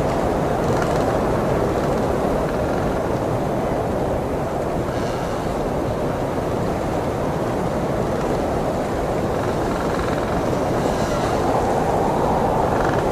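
Blizzard wind blowing hard and steadily, a dense rushing noise that swells slightly near the end.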